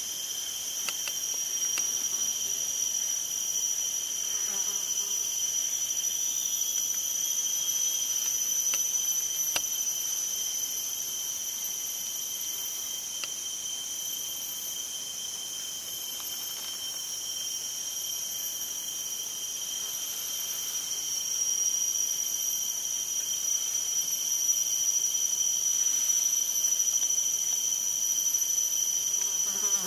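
Steady chorus of tropical rainforest insects: several shrill high tones held without a break, with occasional faint clicks.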